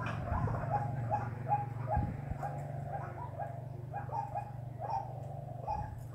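White-breasted waterhen calling: a steady run of short, repeated notes, two or three a second, over a constant low hum.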